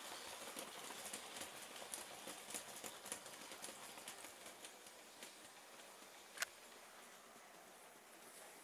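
Faint, quick clicking of a Bachmann OO gauge Class 20 model train's wheels running over the rail joints as it hauls tank wagons past, thinning out as the train draws away, with one sharper click about six seconds in.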